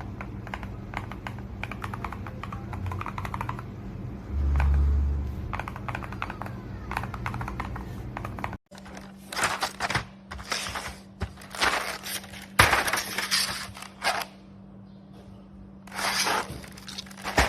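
Plastic keycaps and keyboard being handled: scattered light clicks over a steady low hum, with a low thud about four seconds in. After a cut about halfway through come several short bursts of clattering and scraping.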